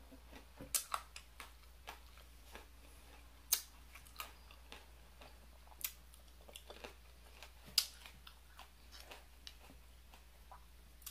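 Chewing a mouthful of crunchy salad, with soft clicks from the mouth and a handful of sharp clinks of a metal fork against the plate.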